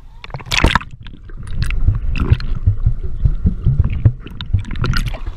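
Sea water heard through a submerged waterproof action camera: a splash about half a second in, then a deep, muffled underwater rumble with irregular thumps and bubbling clicks.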